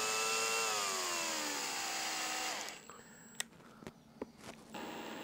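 Cordless drill-driver driving a screw into a plastic housing: its motor whine holds steady, then slows, falling in pitch, and stops about two and a half seconds in, followed by a few faint clicks.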